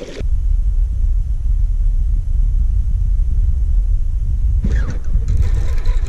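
Wind buffeting the microphone: a steady, uneven low rumble, with a short rustle near the end.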